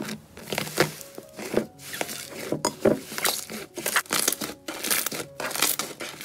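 Slime being pressed, squeezed and kneaded by hand, with many short, irregular crackles and pops.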